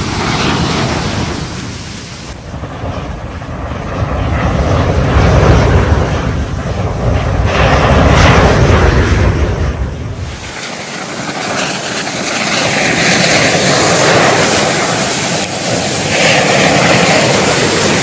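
A large mass of burning matches flaring up with a loud rushing fire noise that swells and eases. About ten seconds in, the deep rumble drops away, leaving a thinner, hissier burning.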